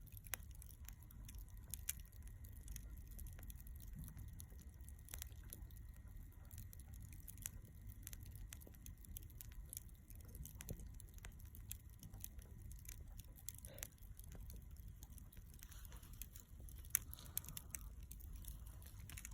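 Charcoal burning in a shichirin clay brazier, giving off irregular faint crackles and small pops over a low steady rumble, with one sharper pop near the end.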